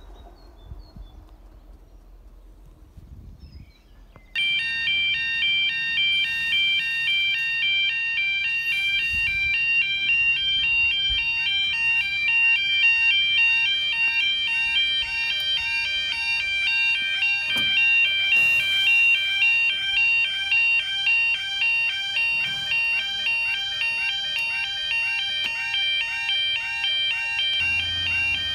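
Level crossing audible warning alarm: an electronic alarm warbling rapidly between high tones. It starts suddenly about four seconds in and sounds continuously, warning road users that the crossing sequence has begun and a train is approaching.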